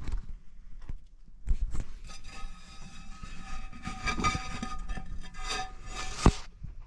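Terracotta lid scraping and squealing against the rim of the terracotta pot as it is worked off, a steady grating screech for a few seconds that ends with a sharp knock.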